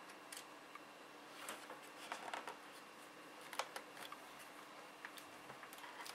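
Light, irregular clicks and small scrapes of hands working on a laptop's plastic case and its small screws, with a brief cluster of handling noise about two seconds in and the sharpest click about three and a half seconds in.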